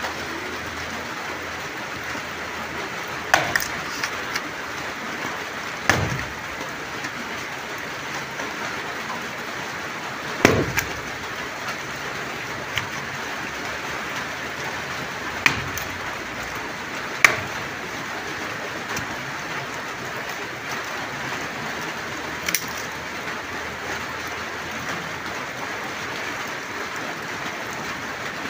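Steady rain falling, with a handful of sharp wooden knocks at irregular intervals as dry sticks are struck and handled. The loudest knock comes about ten seconds in.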